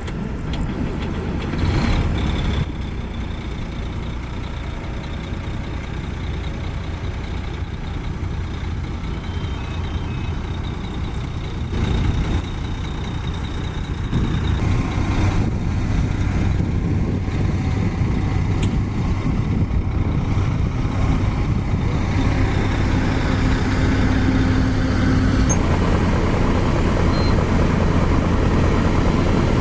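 Diesel engine of heavy road-construction machinery running with a steady low drone, growing louder about halfway through and again near the end.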